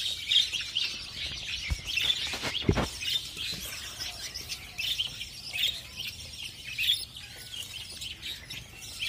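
Many small caged parrots chirping, a steady stream of quick high-pitched chirps. Two dull thumps come about two and three seconds in.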